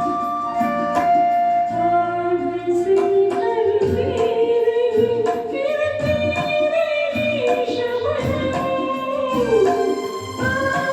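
Hindi film-style song: a voice holds a long, gliding melody line without clear words over instrumental accompaniment and a steady light percussion beat.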